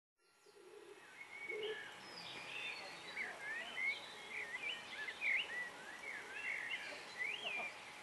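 Several songbirds singing together, a busy run of quick chirps and warbling phrases, over a faint outdoor hiss. The sound fades in from silence at the start. Two low coos, as from a dove, come about half a second and a second and a half in.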